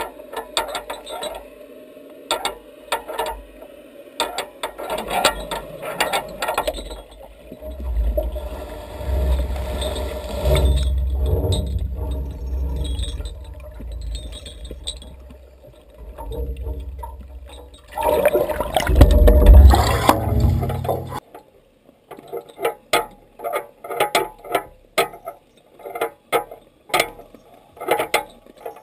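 Underwater sound picked up by the camera: scattered sharp clicks and taps, then a low rushing rumble of moving water and handling that builds and is loudest near the twenty-second mark before stopping suddenly, followed by a run of sharp, irregular clicks.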